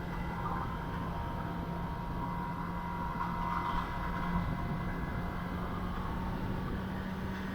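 2021 Kawasaki ZX-10R's inline-four engine running at a nearly constant pitch while the bike cruises, with a low rumble of road and wind noise underneath; the pitch sags slightly about four seconds in.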